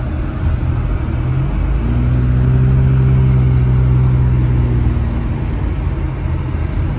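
Car interior while driving: steady engine hum and road noise, with the engine drone growing louder from about two seconds in and easing off near the end.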